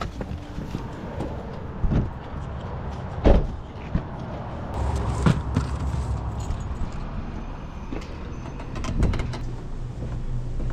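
Several separate knocks and thumps, the loudest about three seconds in, over a steady low rumble.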